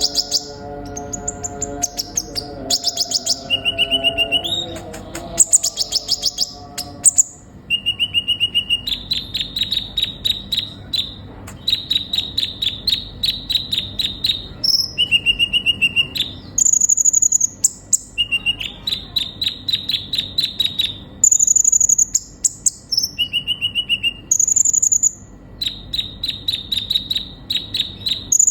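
Kolibri ninja sunbird singing: rapid trills of high, sharp notes in runs of one to two seconds, broken by short, steady, very high whistles.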